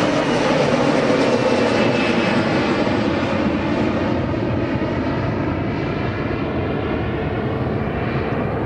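Embraer E-Jet regional airliner's twin turbofan engines at take-off power as it climbs away, a dense jet roar with a faint high whine that slowly fades as the aircraft recedes.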